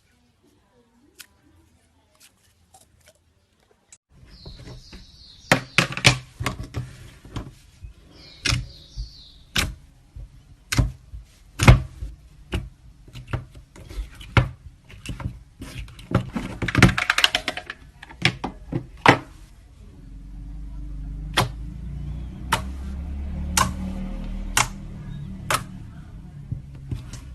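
Slime being squeezed and pressed by hand, giving a run of sharp, irregular pops and clicks. A low steady hum runs underneath from about four seconds in and gets louder near the end.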